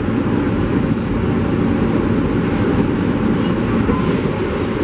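R143 subway train running: a steady, loud rumble of wheels on rail.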